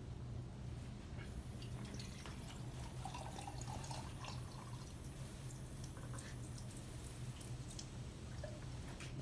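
Tap water running from a sink faucet into a glass beaker, filling it. A steady low hum sits underneath.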